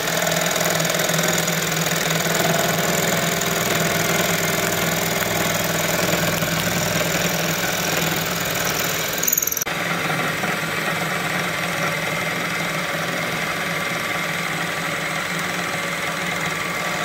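Vertical milling machine running a large face mill across a motorcycle bottom yoke, skimming its surface: a steady machine drone under continuous cutting noise, with a brief break about nine and a half seconds in.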